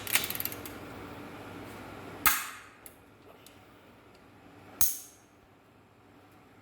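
Snap-on brushless long-reach cordless ratchet trying to break loose a fastener torqued to 60 ft-lb, which it manages only after several tries. A quick rattle of clicks at the start, then two loud sharp metallic clacks, about two seconds in and near five seconds, each ringing out briefly.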